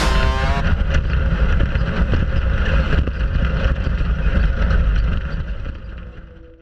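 Off-road race vehicle running at speed: a steady engine and driving noise with wind buffeting the microphone, fading out near the end. A guitar track cuts off about half a second in.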